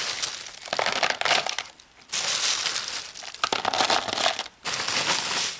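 Dry ice pellets being grabbed from a plastic bag and dropped into a plastic tub, with the bag rustling and the pellets clattering against the plastic, in about four bursts with short pauses between.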